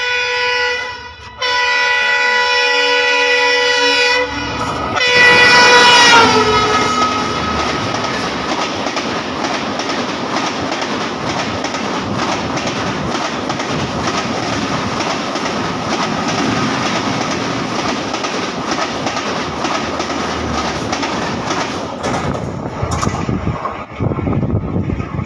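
A passing passenger train's horn sounds three blasts as it approaches, the third louder and dropping in pitch as the locomotive goes by about six seconds in. The coaches then clatter and rumble past on the adjacent track, thinning out near the end.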